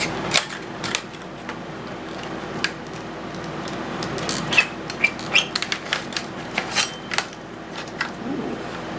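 Metal mortise lock hardware being unpacked and handled: a scatter of sharp clicks and clinks, thickest in the second half, over a steady low hum.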